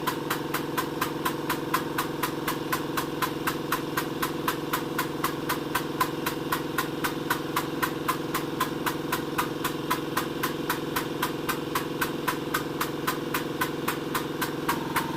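Worn old air compressor running under load with a steady motor hum and a regular clatter about four or five times a second, struggling to build up pressure to raise a car on a lift.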